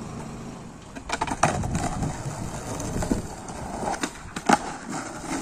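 Skateboard wheels rolling over a rough concrete road, with a sharp pop of the tail for a kickflip about four seconds in and a loud clack of the board landing half a second later.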